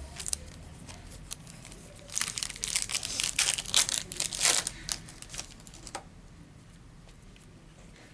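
A plastic trading-card pack wrapper being torn open and crinkled in the hands, a dense crackling rustle for about three seconds, with a few lighter crinkles after.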